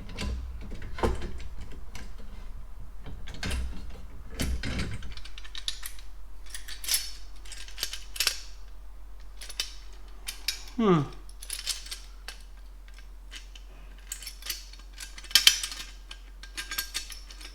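Irregular clicks and metallic clatter of rack-mount brackets and hardware being fitted and moved by hand, with a brief falling squeak about eleven seconds in.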